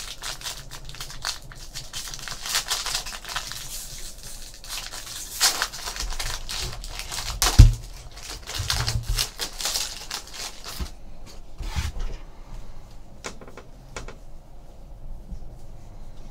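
A trading card pack's wrapper being torn open and crinkled, with cards handled and shuffled, giving dense crackling and clicking that thins out to a few light clicks in the last third. One loud thump a little past halfway.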